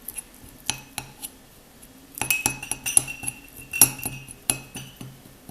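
A teaspoon clinking against the inside of a cup while stirring honey with ground ginger and turmeric into a paste. A few separate clinks come first, then a quicker run of ringing clinks from about two seconds in.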